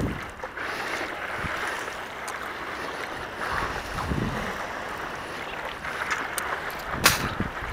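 Paddle strokes from a stand-up paddleboard in calm water: the blade dipping and pulling with splashes and drips, over wind buffeting the microphone, with a louder splash about seven seconds in.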